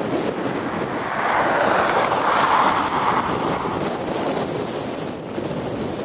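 Blizzard wind blowing hard across the microphone, a steady rush that swells in a stronger gust about a second in and eases again after a few seconds.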